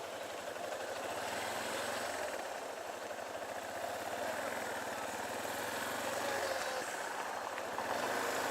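Engine of a Yamaha Serow 250, an air-cooled single-cylinder motorcycle, running steadily.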